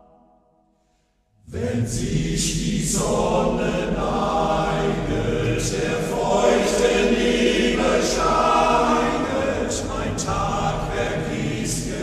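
A men's choir singing in German, entering together after about a second and a half of near silence and carrying on at full voice, with crisp sibilant consonants.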